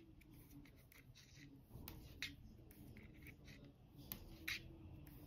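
Faint rubbing and light clicks of steel circular knitting needles and yarn as a row of knit stitches is worked, with a few sharper ticks here and there.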